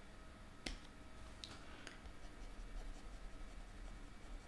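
Faint tapping of a stylus on a tablet screen while part of a drawing is erased: one sharp click about two-thirds of a second in, then two softer ticks about a second later.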